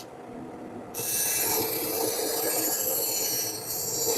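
Carving tool cutting into a woodblock: a soft scrape at first, then from about a second in a continuous scraping rasp of the blade through the wood.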